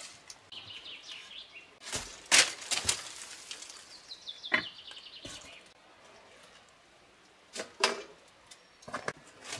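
Rustling of dry fallen leaves and knocks of camping gear as a man rummages in a backpack and pulls out a metal bow saw, laying it on the rock with a sharp clack just before eight seconds in. A small bird gives a high trill twice in the background.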